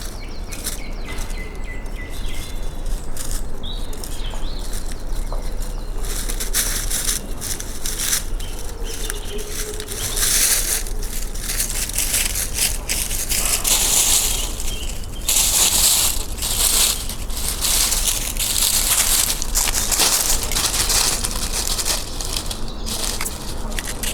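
Woodland field recording: a few short whistled bird notes near the start, then dense, crackling rustle in uneven bursts that grows louder toward the middle, over a steady low rumble.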